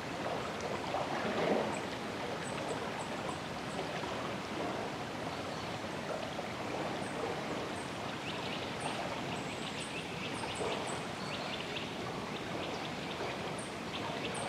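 Drawa river flowing with a steady rush of water. Short, faint, high-pitched peeps repeat over it, and from about eight seconds in a quick patter of tiny ticks joins.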